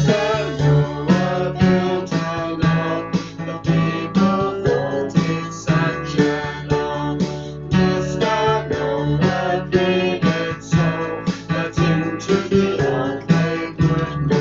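Acoustic guitar strummed in a steady rhythm, an instrumental passage of a song.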